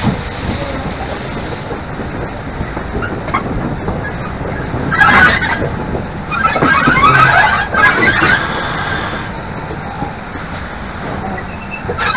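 Steam locomotive 6023 'King Edward II', a GWR King class 4-6-0, running along the line. The sound is a steady rumble of running and rail noise, with louder, rough bursts of noise about five seconds in, again about a second later lasting nearly two seconds, and once more near the end.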